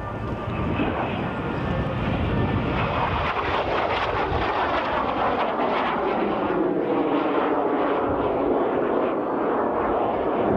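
Fouga CM.170 Magister's twin Turbomeca Marboré turbojets whining on a low pass. The pitch falls from about four to eight seconds in as the jet goes by.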